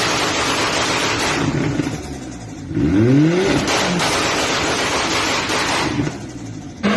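Modified SUV's engine revving hard through a loud exhaust, its pitch climbing steeply about three seconds in, easing off briefly around two seconds and again near the end.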